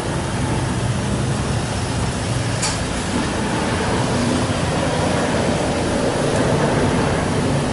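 Steady rumbling machine drone with a single light click about two and a half seconds in.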